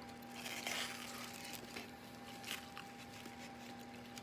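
Soft eating sounds: mouth smacking and chewing of fufu and egusi soup, with a few small wet clicks and a brief rustly patch about a second in.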